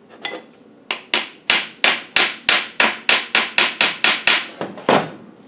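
Hammer tapping repeatedly on a housing from an LT77 gearbox, about three or four sharp blows a second starting about a second in, to break the housing's gasketed, siliconed joint.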